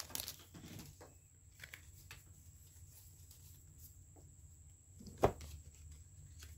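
Quiet handling of trading cards with a few faint ticks, then one sharp tap about five seconds in as a card is laid down on the tabletop.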